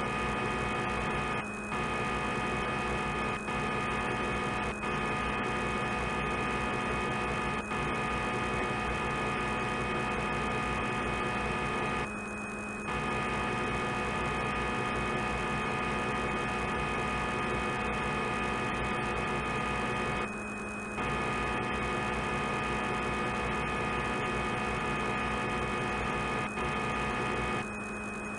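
CNC simulator's lathe machining sound during an automatic cycle: a steady hum with several constant tones that briefly drops out about four times.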